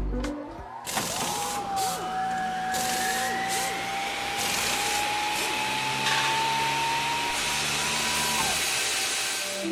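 A small electric tool motor running steadily with a hiss and a whine that rises slowly in pitch, starting about a second in and cutting off near the end.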